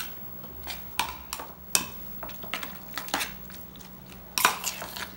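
Metal spoon stirring a thick mix of grated cheese and cream in a ceramic bowl: irregular clinks and scrapes of the spoon against the bowl, with a longer, louder scrape near the end.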